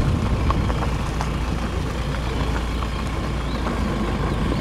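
A car driving slowly over a badly broken road of loose gravel and exposed stones: a steady low rumble of the tyres and body, with scattered sharp clicks of stones under the wheels.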